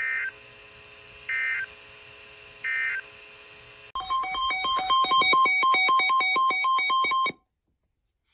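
Emergency Alert System end-of-message data signal: three short bursts of warbling two-tone digital data, each about a third of a second and about a second apart, marking the end of the weather alert. After it comes a louder electronic alarm of rapidly alternating high and lower beeps, which lasts about three seconds and cuts off abruptly.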